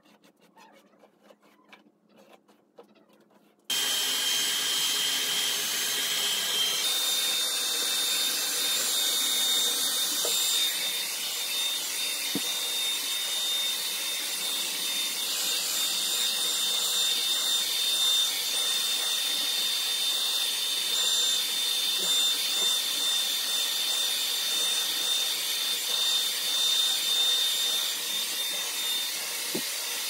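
After a few seconds of near quiet, a hand-held hair dryer switches on suddenly and runs steadily, a rush of air with a high whine. The whine steps up slightly in pitch about seven seconds in.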